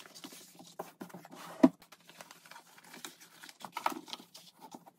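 Rustling and crinkling of a sheet of drawer liner being handled and pressed flat into a drawer, with a sharp knock about one and a half seconds in and a smaller one near four seconds.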